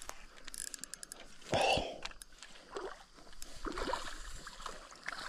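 A hooked bass splashing and thrashing in the shallow water at the bank as it is reeled in, with a run of quick faint clicks in the first second.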